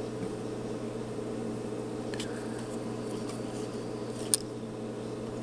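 A steady low hum, with a few light ticks and one sharp click a little after four seconds in from hand-soldering on a circuit board.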